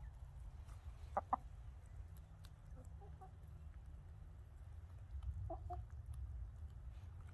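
Hens clucking: a sharp pair of clucks about a second in, a few quieter clucks around three seconds, and another pair of clucks about five and a half seconds in, over a steady low rumble.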